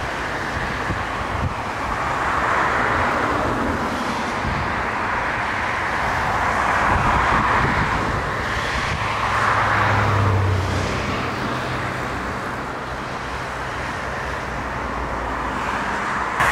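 Twin-engine jet airliner's engines running loud just after touchdown and through the rollout, the noise swelling and easing several times in a strong wind.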